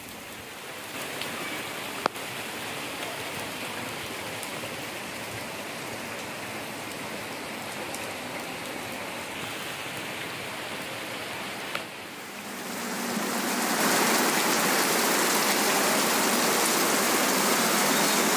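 Heavy rain pouring down steadily. There is a single sharp click about two seconds in, and about twelve seconds in the sound changes to a louder downpour.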